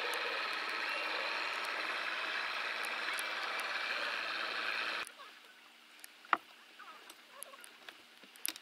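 Bass boat's outboard motor running steadily at idle, then stopping abruptly about five seconds in. After that there are only scattered light ticks and one sharp knock.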